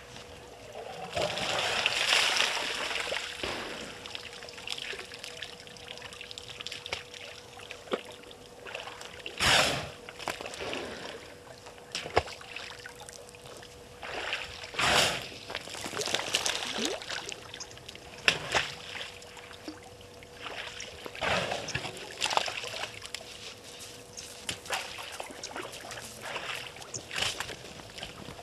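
Water splashing and sloshing in irregular bursts as an African elephant drinks, drawing water up its trunk and squirting it into its mouth. A faint steady hum runs underneath.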